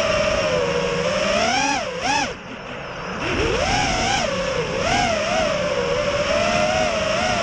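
FPV racing quadcopter's motors and propellers whining, the pitch rising and falling with the throttle; about two and a half seconds in the whine drops low and quieter, then climbs back.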